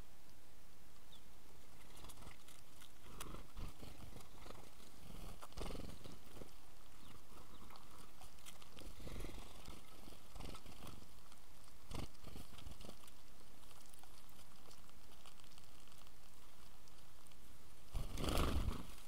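House sparrows at a ground feeder: scattered small clicks and brief rustles of birds pecking and shuffling at the seed. Near the end comes a loud, short burst of wingbeats as the flock flies off together.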